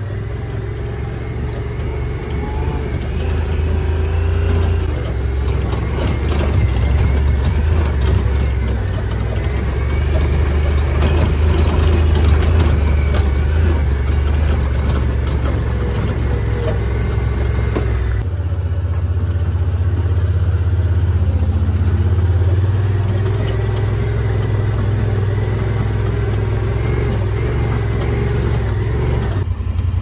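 Side-by-side utility vehicle running steadily as it drives across a rough pasture, its engine a continuous low drone, with scattered knocks and rattles from the ride. The engine note shifts a little past halfway.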